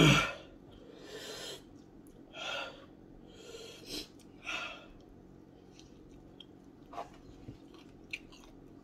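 A man breathing hard through his mouth against the burn of very hot chicken wings: a short voiced huff at the start, then four hissing breaths in the next few seconds. After that, quieter chewing with a couple of small clicks.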